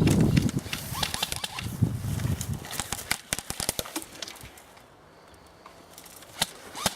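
Rustling and scuffing of an airsoft player's clothing and gear as he moves, with many short sharp clicks. It settles down after about three seconds, leaving only a few louder clicks near the end.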